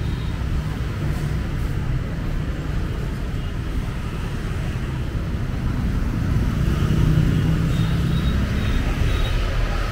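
Street traffic of motor scooters and cars passing on the road, a steady low rumble that swells louder about seven seconds in as a vehicle passes close.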